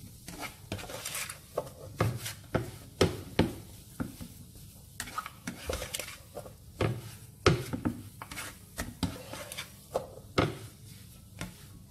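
A spatula scraping and knocking against a non-stick pan as thick mashed sweet potato halua is pressed and stirred. It is an irregular run of scrapes and taps, with a few louder knocks among them.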